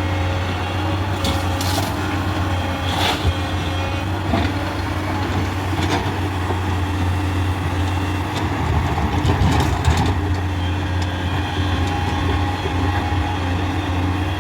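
Heavy diesel engine of earthmoving machinery running steadily, with a few sharp metallic clanks and knocks, the loudest about ten seconds in.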